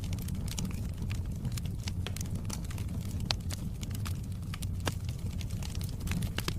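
Wood fire crackling in a fireplace: irregular sharp pops and snaps over a steady low rumble of burning logs, with two louder pops a little after the middle.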